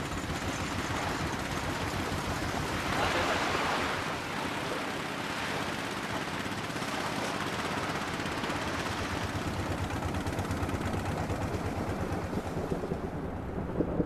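Boat engine running with a fast low pulsing, under a steady hiss of wind and sea; the hiss fades away just before the end.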